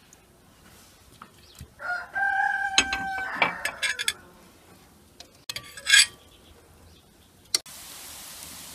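A rooster crows once about two seconds in, a drawn-out call held for over a second before breaking off. Sharp metallic clinks come around it, the loudest a short one about six seconds in. Near the end a steady sizzling hiss starts: shredded potatoes frying in oil in a wok.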